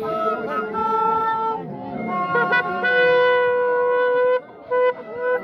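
Andean wooden duct flutes playing a carnival tune with a reedy, raspy tone: a melody of held notes that settles into one long steady note about three seconds in, broken off briefly near the end.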